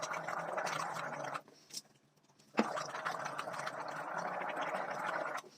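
A person gargling warm salt water in the throat, in two long bouts: the first stops about a second and a half in, and the second starts abruptly about a second later and lasts about three seconds.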